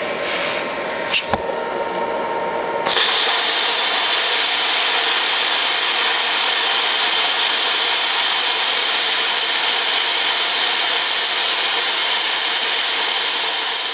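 Hand-held plasma cutter cutting slots in steel plate. About three seconds in, after a quieter steady hum and a single click, the arc strikes and a loud, steady hiss of the cutting arc and air jet holds without a break.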